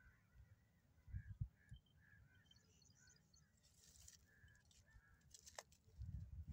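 Faint birds calling: a string of short repeated notes, with a few low thumps about a second in and again near the end.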